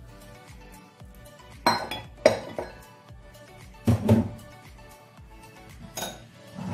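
A spoon and a ceramic bowl clinking and knocking against a stainless steel mixing bowl as wet ingredients are poured onto flour and stirred in: a few sharp clinks, the loudest about two seconds in and again around four seconds. Background music plays throughout.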